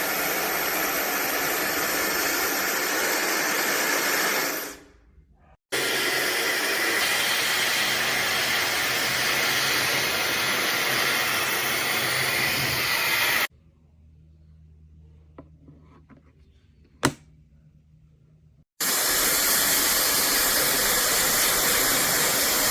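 AINA 2000WE high-speed hair dryer running with a steady rush of air. It is switched off about four seconds in and winds down. It comes back on at a setting with a faint high whine, stops abruptly, and after a quiet gap with one sharp click it runs again near the end.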